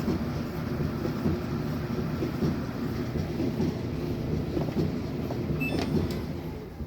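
Samsung dryer running on air fluff, its drum turning on newly fitted rollers with sealed bearings: a steady low rumble, with no squeal.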